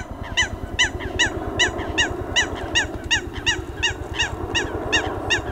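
A bird calling over and over in a fast, even run of short falling notes, about three a second, over a steady low rushing noise.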